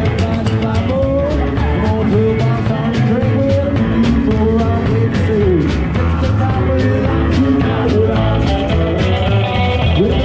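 Live rock-and-roll band playing: electric guitar lines over steady drums and bass.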